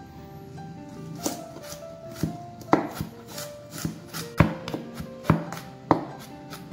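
Kitchen knife cutting garlic cloves on a plastic cutting board: separate sharp knocks of the blade hitting the board as the cloves are sliced, coming quicker near the end as the garlic is minced.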